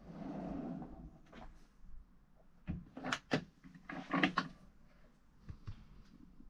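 A motorhome kitchen drawer sliding shut, then several sharp clicks and knocks as a cupboard door's catch is worked and the door swung open.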